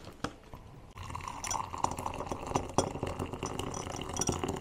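Hot winter melon tea poured from a glass kettle into a glass mug: a steady stream of liquid starts about a second in and runs on, with a few light clinks of glass.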